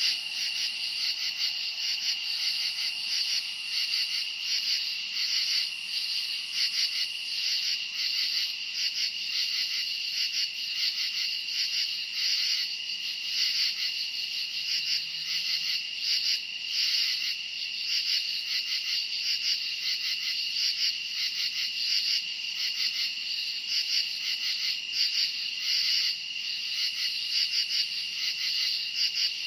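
A chorus of many crickets chirping continuously, a dense high-pitched pulsing that swells and dips slightly.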